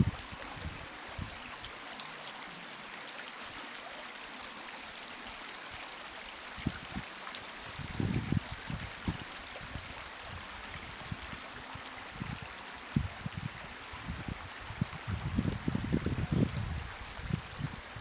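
A small shallow stream trickling steadily over a rocky bed. Gusts of wind buffet the microphone with low rumbles about eight seconds in and again near the end.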